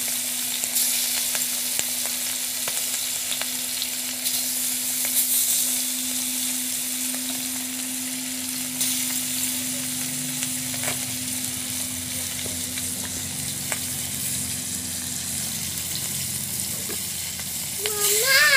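Pieces of turmeric-and-salt-coated fish shallow-frying in hot oil in a kadai: a steady sizzle with scattered pops and crackles. Just before the end comes a brief, loud, rising-and-falling squeak.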